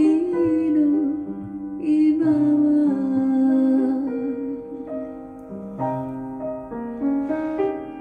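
Live ballad for female voice and piano: the singer holds a long note with vibrato over piano chords for the first few seconds, then the piano plays on alone.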